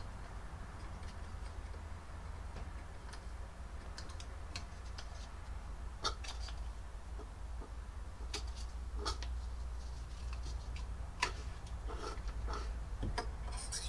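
Scattered light clicks and taps, about one every second or two, from handling a plastic syringe air-gap tool and its tube at the top of a motorcycle fork tube, over a low steady hum.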